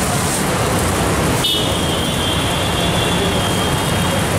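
Steady low rumble and hiss of a busy dosa griddle counter, with no speech. About a second and a half in, the noise breaks off for an instant and a thin, steady high whine sets in and runs for about three seconds.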